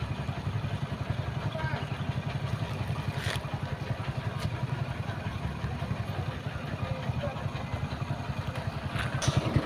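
A vehicle engine idling steadily: an even, low, pulsing rumble, with faint voices in the background.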